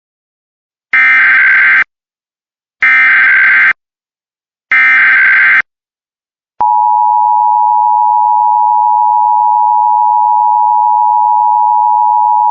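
Emergency Alert System signal announcing a Blue Alert: three identical bursts of SAME header data, each just under a second long and about a second apart, then about six and a half seconds in the steady two-tone attention signal starts and holds.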